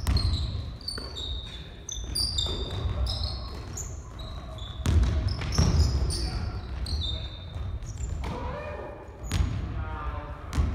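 Basketball bouncing repeatedly on a wooden gymnasium floor with sharp thuds, mixed with short high squeaks of sneakers on the boards as players cut and stop.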